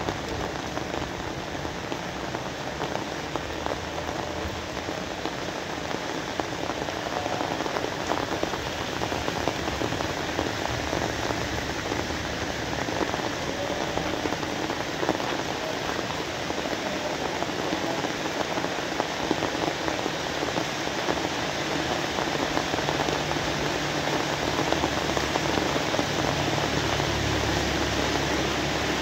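Steady rain falling on a surface, a dense even patter of drops. A low rumble grows under it over the last several seconds, and the rain gets slightly louder.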